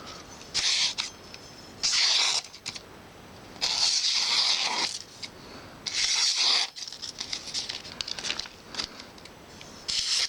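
A freshly sharpened knife slicing through newspaper: five or six short, dry papery swishes with pauses between, the longest lasting about a second.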